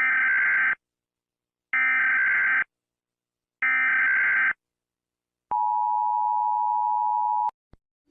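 Emergency Alert System alert tones. There are three short screeching bursts of SAME header data, each just under a second with about a second's gap between them. About a second later comes the two-tone attention signal, held steady for about two seconds and cut off abruptly.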